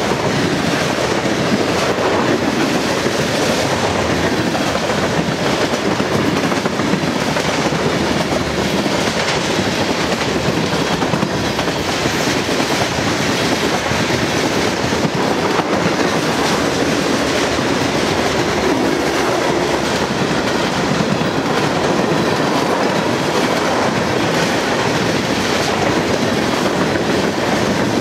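Freight cars of a CSX train rolling past close by: a steady rumble of steel wheels on the rails with a running clickety-clack as the trucks pass over the rail joints.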